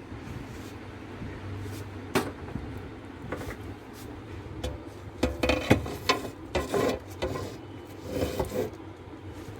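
Clacks and knocks of a PC cabinet and parts being handled, in scattered single strikes and then a busier cluster of rattling knocks in the second half.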